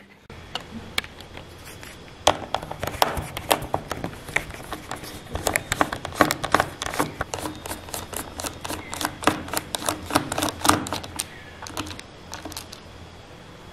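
Small precision screwdriver turning out the screws of a laptop's plastic bottom panel: a dense, irregular run of sharp clicks and ticks as the bit works the screws. The clicks thin out near the end.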